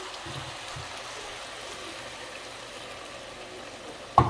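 Chicken stock pouring from a glass measuring cup into a hot skillet of sausage, vegetables and rice on high heat, with a steady sizzle as the liquid hits the pan. A single sharp knock near the end.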